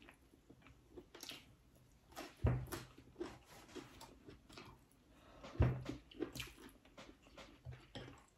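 Soft eating sounds: chewing and wet smacking as fried fish and rice are eaten by hand, with scattered small clicks and two dull thumps, one about two and a half seconds in and one about five and a half seconds in.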